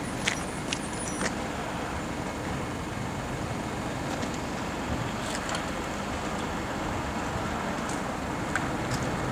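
Steady rumble and hiss of a ULF low-floor tram standing at a stop amid street noise, with a few light clicks about a second in.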